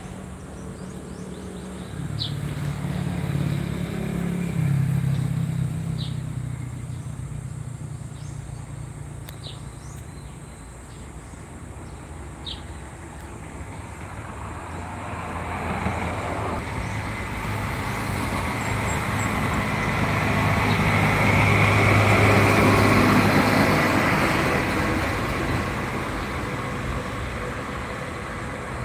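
Road vehicles passing by. The first goes by in the first several seconds with a low engine hum. A second, louder one builds in the second half, is loudest about three-quarters of the way through, then fades.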